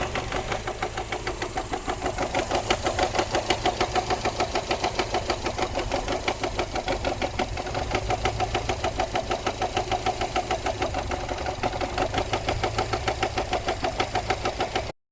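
Subaru Legacy 2.0GT spec B's boxer engine running with a loud rhythmic rattling clatter, several beats a second, from the engine bay. The rattle comes from a failed timing belt tensioner. The sound cuts off abruptly just before the end.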